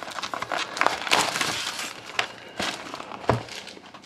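Plastic shrink-wrap crinkling as it is pulled off a cardboard trading-card box, in irregular crackles, the sharpest about three seconds in.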